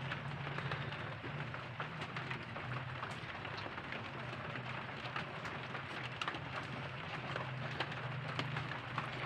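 Pan of soup boiling, a steady hiss of bubbling with many small pops, over a low steady hum.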